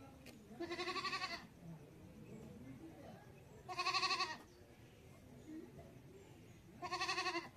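Goat bleating three times, about three seconds apart, each call short and quavering.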